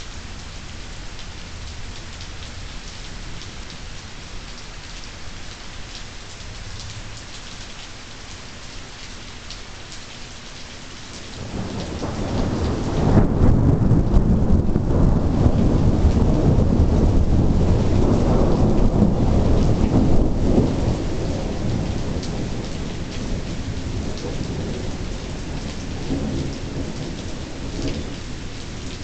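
Steady rain falling, then about eleven seconds in a long roll of thunder builds up, stays loud for several seconds, and slowly rumbles away.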